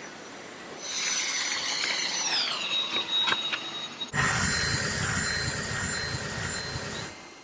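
Vacuum cleaner motors running in a string of short clips. About two seconds in, one motor's high whine drops in pitch. At about four seconds a louder vacuum with a deeper rumble cuts in, and it fades out near the end.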